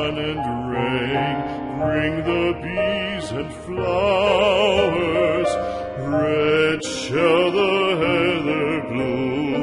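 Background music in a classical, operatic style: a slow song with a sustained voice singing in wide vibrato over accompaniment.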